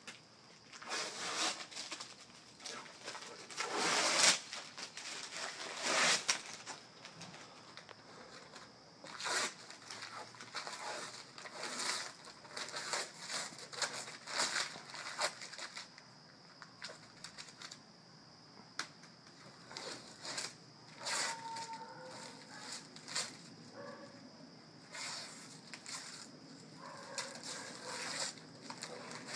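Protective paper being peeled and torn off a basketball backboard by hand: a long run of irregular rips and rustles, the loudest about four and six seconds in.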